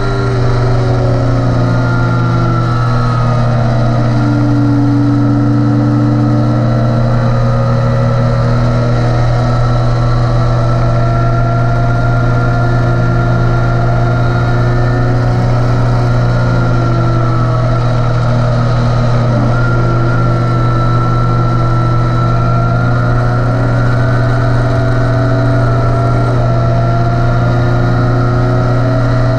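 Onboard sound of a Yamaha YZF-R3's parallel-twin engine running hard down a straight, its pitch held fairly steady with slow small rises and dips, under a constant low rush of wind on the microphone.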